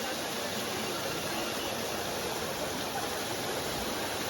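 Steady rushing of water in a shallow mountain stream.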